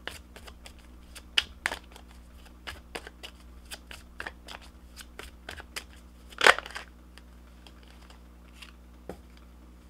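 A deck of tarot cards being shuffled by hand: irregular soft clicks and flicks of cards sliding against each other, with one louder rustle about six and a half seconds in. A faint steady low hum runs underneath.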